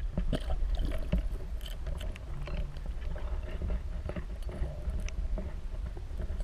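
Muffled water noise around a kayak: a steady low rumble with scattered small knocks and ticks.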